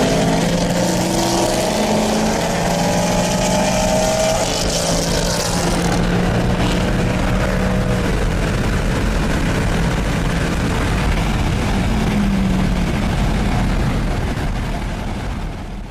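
Performance car engine accelerating, its pitch climbing over the first few seconds, then running on more steadily and fading away near the end.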